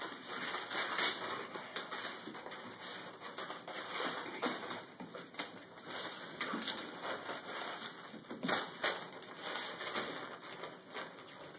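A dog tearing and tugging at gift-wrapping paper: irregular crinkling and ripping of paper, a little louder about two-thirds of the way through.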